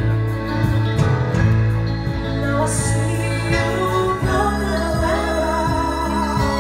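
Live pop band playing: bass guitar, electric guitar, keyboard and drums under vocal harmonies from two women and a man. From about four seconds in the voices hold long, wavering notes over the steady bass and drum beat.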